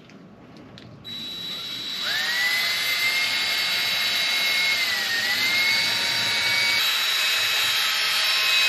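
Cordless drill with a mixing paddle stirring epoxy resin and hardener in a plastic bucket. The motor's whine starts about a second in, rises to full speed, then holds steady with a brief dip in pitch near the middle.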